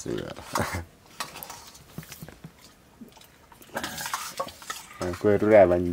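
Spoons and fingers clinking and scraping on stainless steel plates and bowls during a meal, in scattered light clicks. A brief pitched voiced sound comes in near the end and is the loudest thing.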